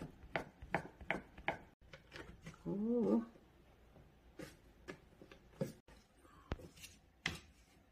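A kitchen knife chopping through rolled noodle dough onto a wooden cutting board, about four even strokes in the first second and a half. Around three seconds in, a short rising-and-falling voiced sound; after it, a few scattered soft taps as the freshly cut noodles are handled on wood.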